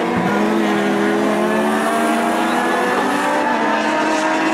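Race car engine under hard acceleration, its pitch dipping briefly near the start and then climbing slowly and steadily.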